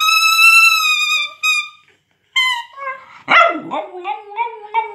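Cavalier King Charles spaniel–West Highland terrier cross howling: one long high-pitched howl held for about a second and a half, then after a short pause a string of shorter, wavering howls and yelps that slide up and down in pitch.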